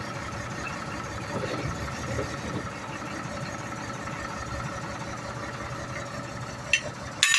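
Vehicle engine idling steadily, with a short sharp click or clank near the end.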